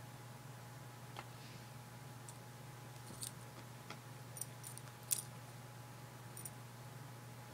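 A handful of faint, sharp metallic ticks and jingles from the tag on a cat's collar as the cat rolls and plays with a catnip mouse, the loudest a little past the middle. Under them a steady low hum.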